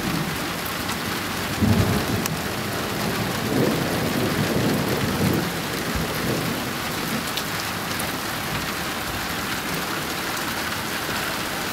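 Steady rain falling in a thunderstorm, with thunder rumbling low, swelling about two seconds in and again for a couple of seconds through the middle.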